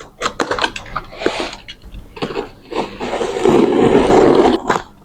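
A cardboard box being opened by hand and its packing handled: irregular scrapes, taps and crinkles, then a longer, louder stretch of rustling packing from about three seconds in.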